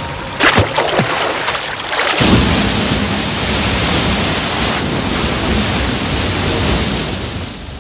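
Water splashing around a cobra swimming at the surface, then, from about two seconds in, the steady roar of a waterfall and a rushing river.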